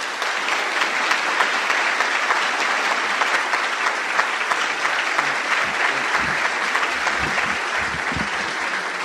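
Audience applauding: steady clapping from many hands throughout, with a few low thumps in the second half.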